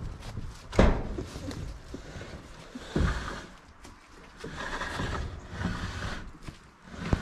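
A large empty plastic water tank knocked and scraped as it is rolled on its edge and heaved up onto a pallet, with two hollow thuds, the louder one about a second in and another about three seconds in.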